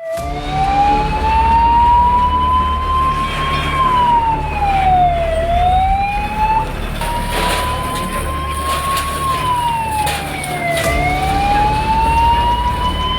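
Fire engine siren wailing, its pitch rising slowly and falling again in about two full cycles, over the low steady hum of an engine.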